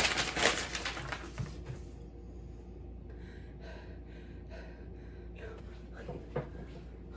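Sheets of printer paper rustling and crackling as they are flung about, loud for the first second and a half or so. Then softer rustling and movement, with one sharp knock near the end.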